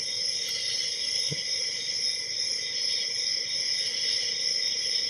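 Steady high-pitched background hiss in several fixed bands, with one faint tick about a second in.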